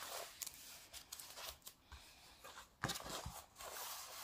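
Faint rustling and crinkling of a large diamond painting canvas and its glossy protective sheet being smoothed flat and lifted by hand, with a sharper crackle just under three seconds in.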